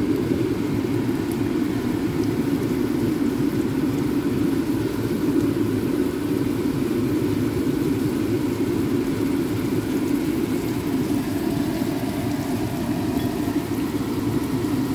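A steady, low machine hum that does not change.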